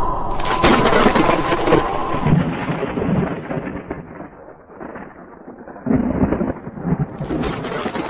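Thunder sound effect: a sharp crack of thunder about half a second in that rumbles and fades away, then two more claps near the end.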